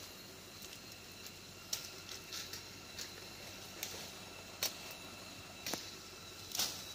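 Footsteps in wet, sticky mud, a soft squelching step about every second, getting louder near the end.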